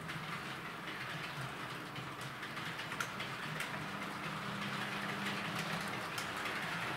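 Model train running slowly along track laid on cork: a steady rolling rumble with a low motor hum and a few sharp clicks, growing a little louder as it comes closer.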